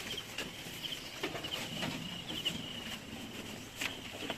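Faint outdoor farm ambience: steady high chirping of birds, with a few sharp knocks scattered through it.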